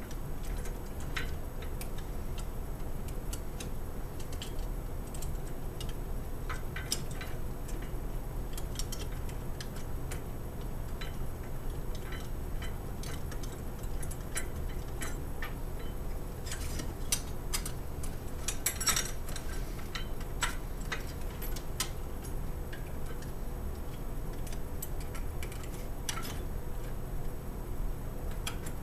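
Scattered small clicks and taps of metal lock parts and mounting bolts being handled and started into their threads by hand, over a steady low hum. The clicks come closest together about 17 to 19 seconds in.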